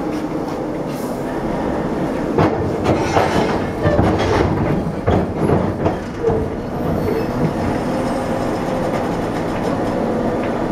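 TEP70 passenger diesel locomotive's 16-cylinder engine running steadily as the locomotive closes up to a passenger car, with a series of heavy metallic clanks and knocks a couple of seconds in, as the automatic coupler engages and the car and locomotive bump together. The engine hum carries on steadily afterwards.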